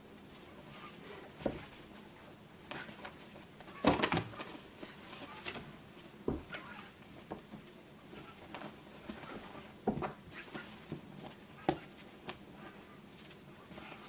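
White cockatoo rummaging in a drawer full of socks: irregular fabric rustles and soft knocks as it pulls the socks out and tosses them, with the loudest cluster of knocks about four seconds in.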